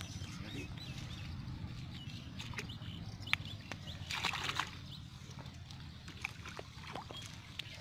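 Pond water sloshing and splashing as a bamboo-framed hand net is pushed through the water and a person wades in, with the biggest splash about four seconds in.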